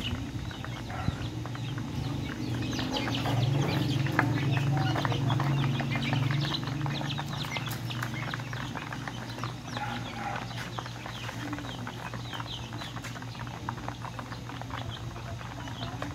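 A caged flock of young chickens and ducklings peeping and cheeping in many short, high calls. A low steady hum runs underneath, louder between about three and seven seconds in.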